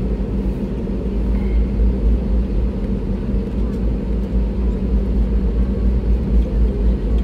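Steady low rumble with a constant hum inside the cabin of an Airbus A320neo taxiing, from its jet engines and its wheels rolling on the taxiway.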